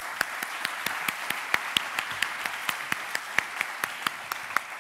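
Audience applauding after a talk, with one nearby person's sharp claps standing out above the crowd at about four to five a second.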